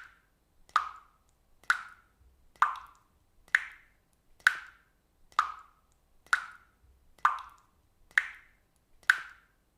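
Water drops falling one at a time into water, an evenly spaced plop about once a second, each a sharp strike with a brief ringing tail that fades quickly.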